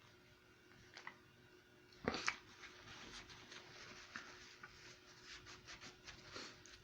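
Faint rustling and small clicks of handling, with one louder short noise about two seconds in.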